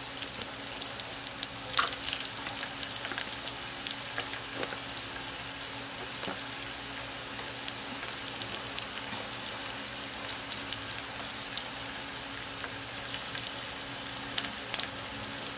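Garlic cloves frying in hot oil: a steady light sizzle with scattered small pops and crackles.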